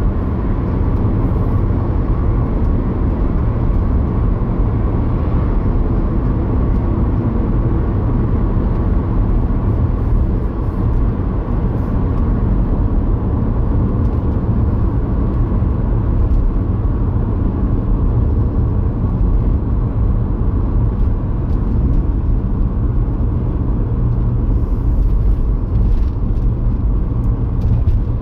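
Steady road and engine noise inside a car cruising at about 45 to 50 mph, a continuous low rumble with no sudden events.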